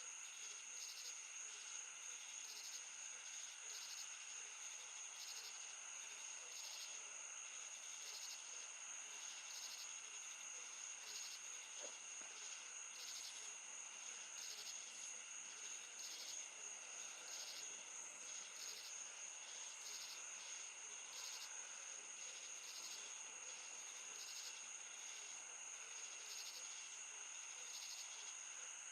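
Night insects, crickets by the sound of it, trilling steadily, with a faint chirp repeating a little faster than once a second.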